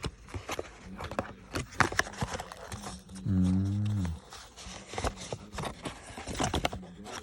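Earphone packaging handled and unpacked: a run of clicks, taps and crinkles. About three seconds in, one low drawn-out vocal sound lasts about a second, falling slightly in pitch.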